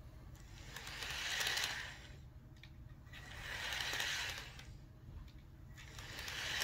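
Motor and gear whir of an Athearn HO-scale SW1000 model diesel locomotive without a sound decoder, running along the track. The whir swells and fades three times, about two and a half seconds apart.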